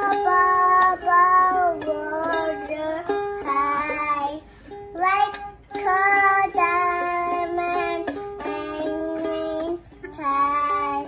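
A toddler singing in a high voice while strumming a ukulele, the sung phrases breaking off briefly a few times.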